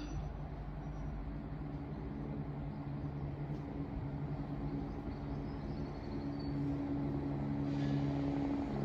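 Chiltern Railways Class 168 Turbostar diesel multiple unit pulling away, its underfloor diesel engines droning steadily and growing a little louder toward the end.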